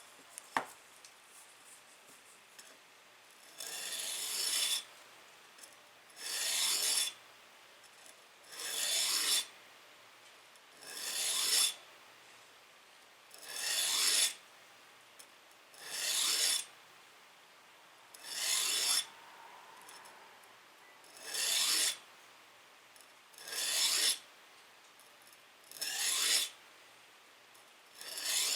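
Slow, even strokes of an abrasive on steel, about one every two and a half seconds, each lasting about a second: the edge of a reciprocating-saw blade being filed by hand into a knife edge. A single sharp click about half a second in.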